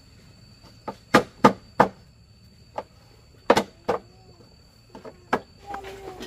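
About ten sharp knocks at irregular intervals, like a tool striking something hard, over a steady high-pitched insect drone that stops near the end. A short gliding animal call comes near the end.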